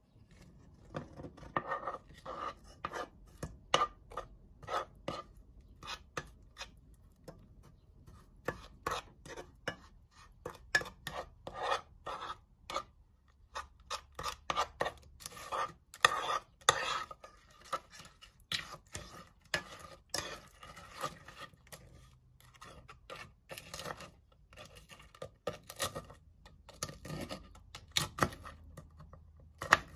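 A metal spoon scraping and clinking against a nonstick saucepan as it stirs and mashes potato chips into milk, yogurt, flour and butter. It is a long, irregular run of short scrapes and taps, several a second.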